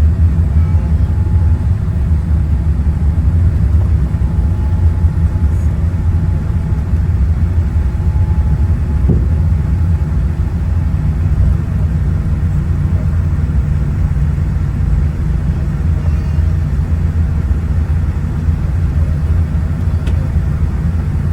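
Steady low rumble heard inside the passenger cabin of a Boeing 787-9 as it taxis after landing.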